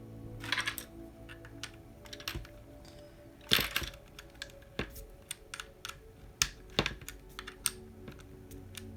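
Irregular plastic and metal clicks and taps of a wheel and flange nut being handled and fastened onto a model RC car's front axle, with one sharper click about three and a half seconds in.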